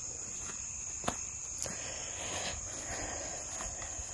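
Steady high-pitched chorus of evening insects, with a few soft footsteps on grass.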